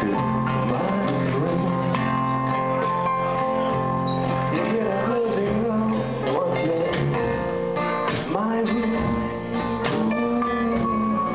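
Live band playing a song: strummed acoustic guitar over a drum kit, with no words sung.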